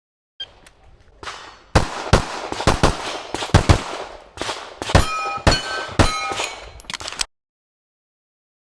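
A rapid series of sharp knocks and metallic clangs, some leaving short ringing tones, over a noisy background, then the audio cuts out abruptly to dead silence about seven seconds in. The sudden dropouts fit a DJI Action 2 recording fault.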